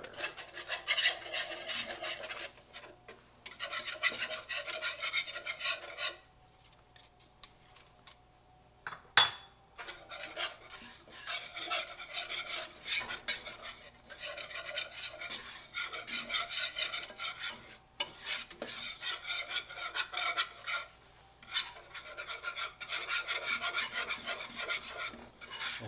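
A whisk scraping rapidly round a non-stick frying pan, beating mayonnaise, flour and bouillon granules into a thick paste. There is a quieter pause about six seconds in, broken by a single sharp knock.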